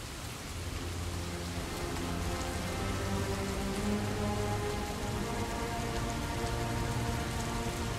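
Steady rain falling, with slow, held low notes of background music under it.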